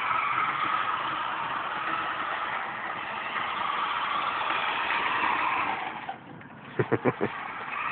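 Electric remote-control toy Jeep's motor and gears whirring steadily as it drives, dying away about six seconds in.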